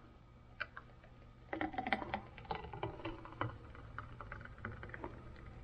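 A quick flurry of light clicks and taps, densest from about one and a half to three and a half seconds in and thinning out after, over a low steady hum.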